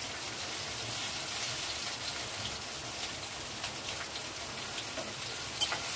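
Chopped green chillies, spring onion greens and garlic greens sizzling in hot oil in a steel kadhai, a steady crackling hiss, with a light click near the end.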